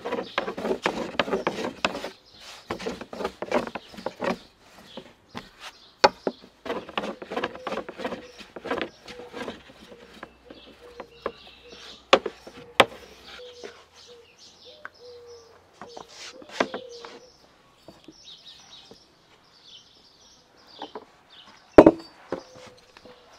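Wooden rolling pin rolling out dough on a wooden board: dense rubbing and knocking in the first few seconds, then scattered knocks. Birds chirp through the middle, and a single loud knock comes near the end.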